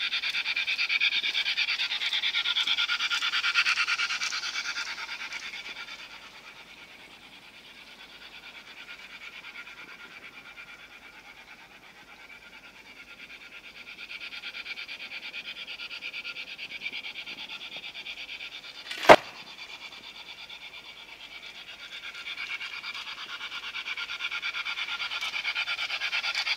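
LGB Stainz G-scale model locomotive's electric motor and gears running as it rolls along the track, a fast, even buzzing rattle that is loud when it is close, fades as it moves away and grows again near the end. One sharp click about two-thirds of the way through.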